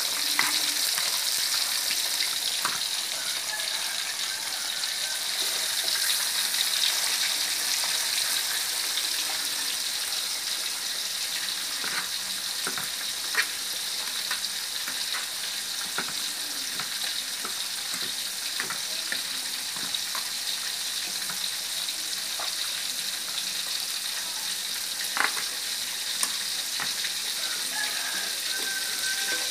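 Whole fish frying in hot oil in an aluminium wok, a steady sizzle with scattered sharp pops of spattering oil.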